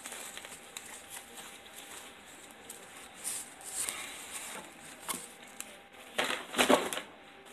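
Fabric rustling and handling noise from a neoprene posture-corrector brace with hook-and-loop straps as it is gathered up and lifted away. Two louder, rough rasping bursts come near the end.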